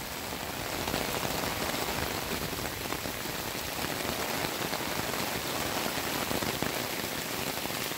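Heavy rain falling steadily onto a flooded yard: a dense, even hiss of drops on grass and on sheets of runoff water, a little louder after about a second.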